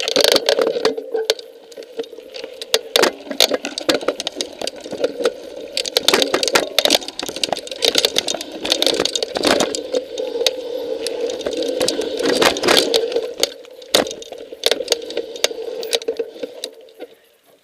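Mountain bike rolling over rocky trail: a steady freehub buzz with many rattles and clicks from the bike, dying away near the end.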